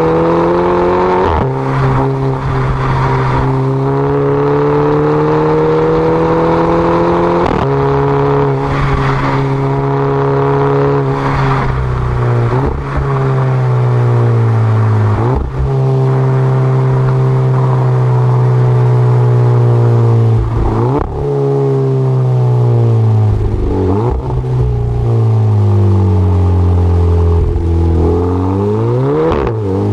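Car engine with a DSG dual-clutch gearbox accelerating through the gears. The engine note climbs slowly, then drops sharply at each upshift every few seconds, each shift marked by a short exhaust 'fart'. Near the end there is a quick rev up and back down.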